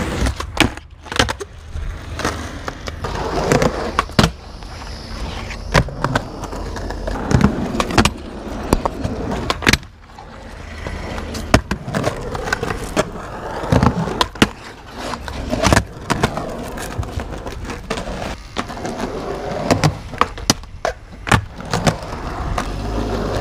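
Skateboard wheels rolling over rough concrete, broken by many sharp clacks and knocks as the board pops, lands and strikes the concrete during repeated trick attempts.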